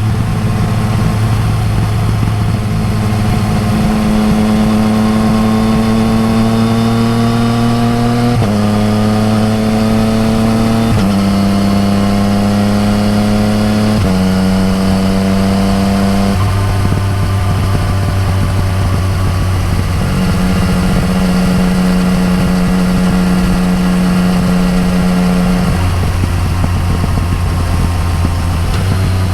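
Yamaha MT-09 Tracer's three-cylinder engine breathing through an Akrapovič exhaust under way. It pulls up through the gears, the pitch climbing and then dropping at each of three upshifts about eight, eleven and fourteen seconds in, and then settles into steady cruising.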